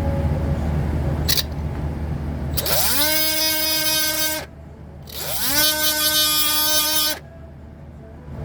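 Electric drill spinning up and running at a steady speed twice, each run about two seconds, drilling out a broken bolt stud in a VGT actuator.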